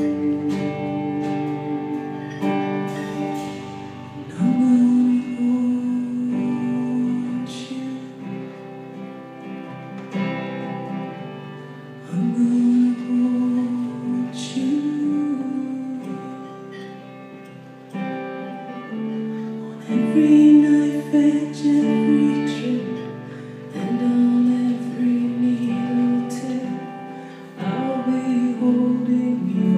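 Live band playing a slow song: a woman singing over guitars, cello, keyboard and drums, heard from the audience in a hall.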